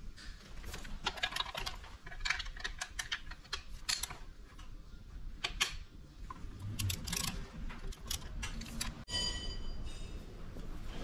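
Irregular light metallic clicks and taps of hand tools being handled against an engine block, in clusters, easing off about nine seconds in.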